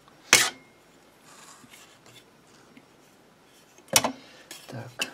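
Metal parts of a boxed drill saw-attachment set knocking against each other and the cardboard box as they are handled. There is one sharp clack about a third of a second in, a quiet stretch, then a few clicks about four seconds in as a metal bar is lifted out.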